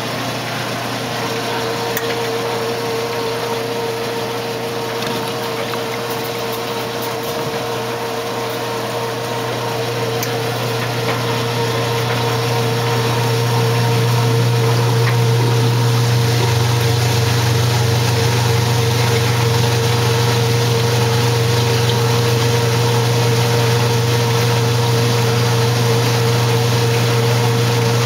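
1968 Kenmore 900 series washing machine running: a steady motor hum with water noise, growing louder about halfway through.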